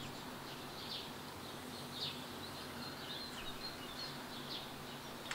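Birds chirping: short high calls recurring about once a second over a steady outdoor background noise.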